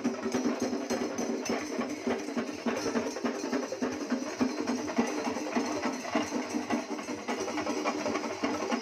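Festival music with dense, rapid drumming and steady sustained tones, going on without a break.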